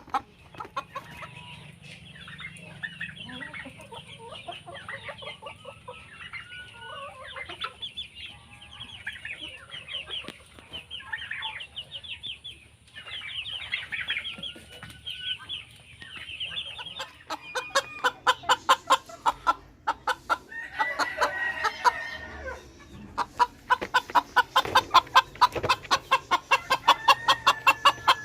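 A large flock of chickens in a poultry shed clucking and calling over one another. From about two-thirds of the way in, a fast, regular run of sharp taps rises over the calls and becomes the loudest sound.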